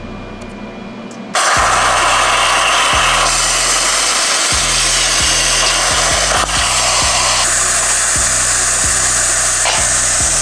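Plasma cutter arc hissing loudly as the CNC torch (Primeweld Cut60 with an X45 torch) cuts through steel sheet. It starts abruptly about a second and a half in, over background music with a steady low beat.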